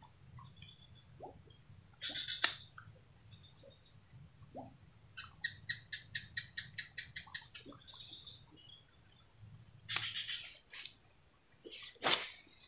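Steady high-pitched insect drone, with scattered bird chirps. A quick run of evenly spaced clicks sounds about halfway through, and a short sharp sound, the loudest, near the end.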